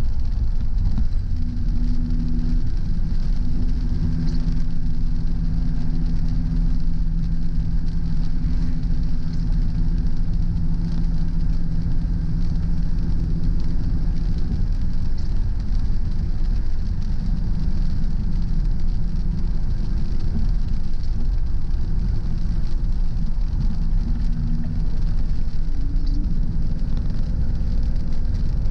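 Car driving along a road: a steady low engine hum over road and tyre rumble, the hum holding an even pitch for about the first half before blending into the rumble.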